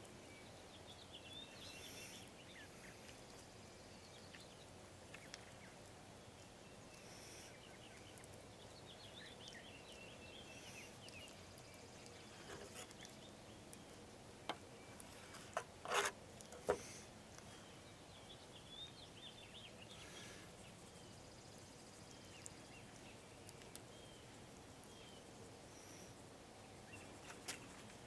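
Quiet outdoor background with small birds chirping now and then, and a few sharp knocks of a knife against a wooden cutting board about halfway through, the loudest sounds.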